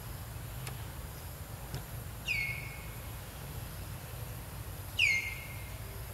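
An animal calls twice, about three seconds apart. Each high call drops quickly in pitch and is then held for about half a second, the second a little louder. A low steady rumble runs underneath.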